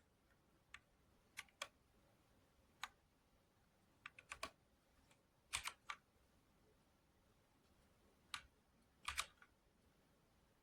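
Keys of a TMKB T61SE mechanical keyboard with red linear switches being pressed. The keystrokes come irregularly, some singly and some in quick clusters of three or four, with pauses of a second or more between.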